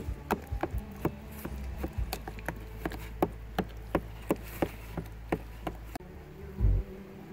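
Open wood fire crackling: sharp, irregular pops a few times a second over a low steady hum, with a low thump near the end.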